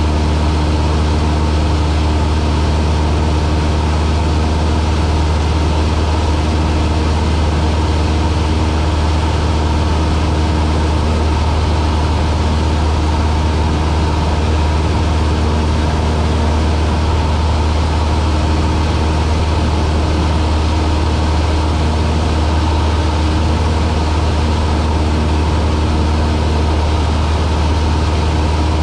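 Cessna light aircraft's engine running steadily: a loud, even drone with a strong low hum that does not change.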